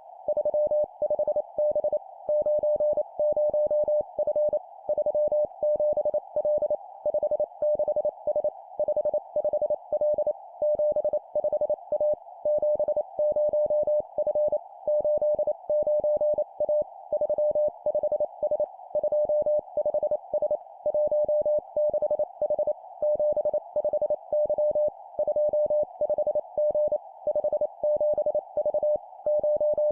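Morse code (CW) practice tone at about 600 Hz, keyed at 25 words per minute, sending three-character groups of two digits and a letter, with brief pauses between groups. A steady hiss runs behind it, confined to a narrow band around the tone, as from a receiver's CW filter.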